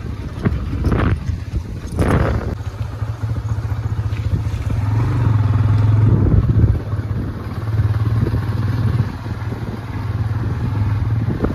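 Motorcycle engine running at a steady low hum while riding along a dirt track, heard from the pillion seat, with two brief rushes of noise about one and two seconds in.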